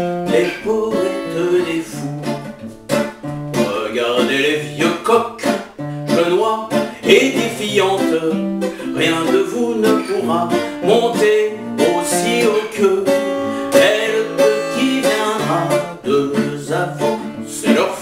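Acoustic classical-style guitar played in a steady picked accompaniment, bass notes alternating under chords.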